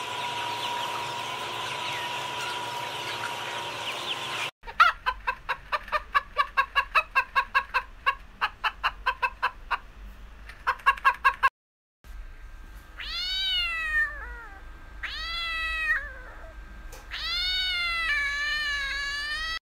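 Three animal recordings in turn. First, a flock of chickens in a poultry shed, a steady busy murmur of small calls. About four and a half seconds in, hens cluck rapidly in quick runs. After a brief silence, a domestic cat meows four times, each meow drawn out, rising and then falling in pitch.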